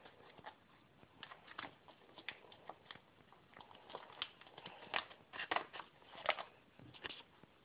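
Handling noise close to the microphone: light, irregular clicks and rustles, two or three a second, a little busier about halfway through.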